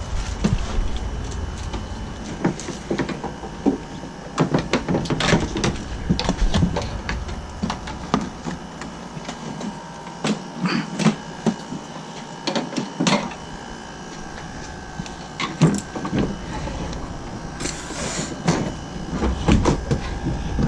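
Irregular knocks, clunks and scrapes of objects being handled and set down during work on a water heater, with a faint steady tone underneath.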